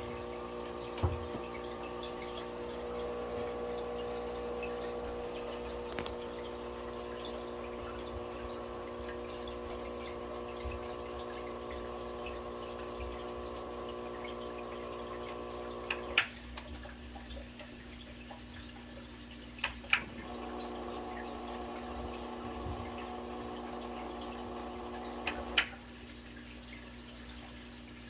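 Canister aquarium filter running with a steady buzzing hum over the sound of moving water, broken by a few sharp clicks, after which the hum's tone shifts. The hum is the kind of filter noise that can come from a worn impeller shaft.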